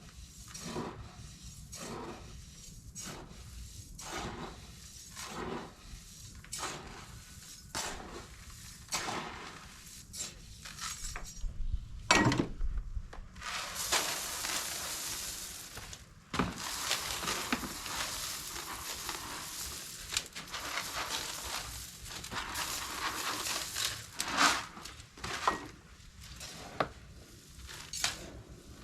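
About a dozen seconds of regular knocks, roughly one every 0.7 s, then a sharp knock. After that comes a long steady rushing hiss of dry seeds being poured into a tote of chicken feed, with a few knocks near the end.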